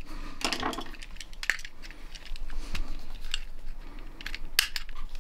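Screwdriver prying and scraping at the plastic housing and test-button parts of a GFCI receptacle: scattered sharp clicks, scrapes and light clinks, with one sharper click a little before the end.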